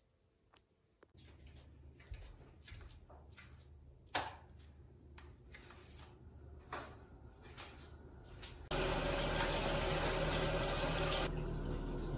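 Scattered light knocks and footsteps, then a bathroom sink tap is turned on about three-quarters of the way in and water runs steadily into the basin.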